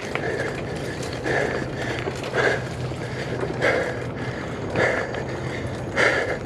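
Worn, 15-year-old bicycle being ridden over a trail, its frame and loose saddle creaking and ticking. A creak comes about once a second over a steady rolling rumble.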